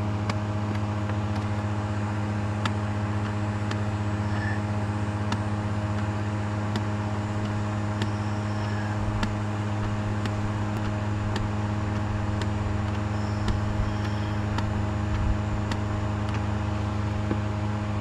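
Steady machine hum at one constant pitch, with faint regular ticks about every two-thirds of a second.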